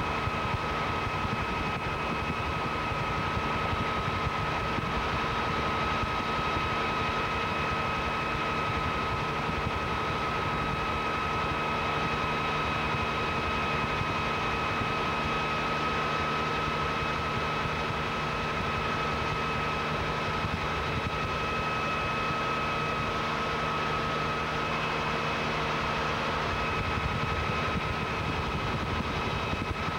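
Helicopter in flight heard from inside the cabin: a steady drone of engine and rotor with a constant high whine over it.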